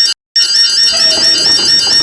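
Synthesized, alarm-like electronic tone: several high pitches sounding together and warbling about four times a second. It is loud, with a short break just after the start.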